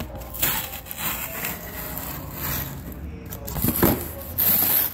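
Rustling and scraping as parts and their wrapping are handled and rummaged through, with a louder burst of rustling near the end.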